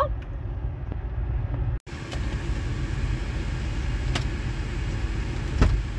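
Car running, a steady low rumble heard from inside the cabin, cutting out for a moment about two seconds in, with a couple of light clicks or knocks later on.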